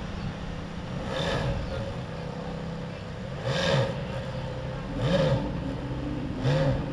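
Ferrari F430's 4.3-litre V8 idling and being blipped four times, each a short rev up and back down.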